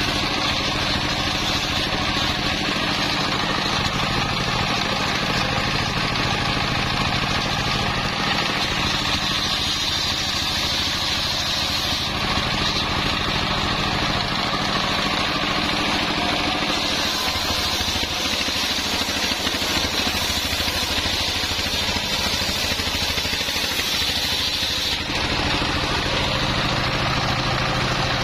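Single-cylinder stationary diesel engine running steadily, belt-driving a homemade circular saw that rips through coconut-palm timber. For several seconds past the middle the sound turns brighter and thinner, then settles back.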